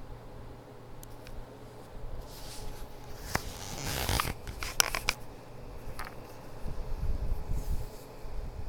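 Stomach growling, heard as low rumbles. In the middle, from about two to five seconds in, there is a louder burst of rustling with several sharp clicks.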